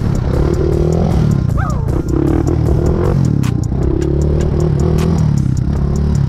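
Honda TRX400EX ATV's single-cylinder four-stroke engine revving up and down while spinning donuts, loud and continuous.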